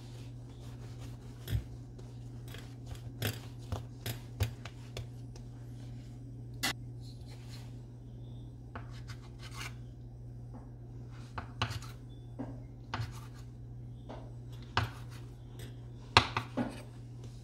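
Dough scraper cutting a log of naan dough into portions, its blade tapping and scraping on a granite countertop in scattered sharp clicks, the loudest near the end. A steady low hum runs underneath.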